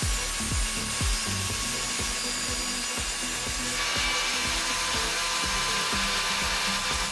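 Electric angle grinder running and grinding steel, throwing sparks. It works in quick rhythmic strokes for the first few seconds, then grinds steadily and more harshly from about four seconds in.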